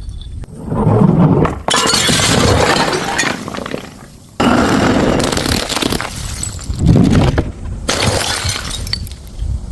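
Glass bottles smashing and shattering, several in a row, each a loud crash with a crunchy tail of breaking glass; the crashes start and stop abruptly.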